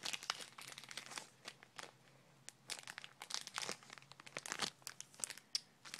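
Toy packaging crinkling and crackling in irregular bursts as it is handled and pried at by hand in an attempt to open it, with a short lull about two seconds in.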